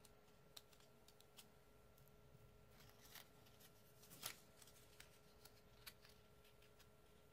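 Very faint rustles and light taps of paper loops being handled and pressed onto a paper circle, with one slightly louder tap a little past four seconds, over quiet room tone with a faint steady hum.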